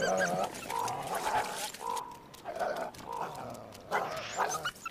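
Coyotes snarling at each other in a run of short calls, loudest at the start and again about four seconds in.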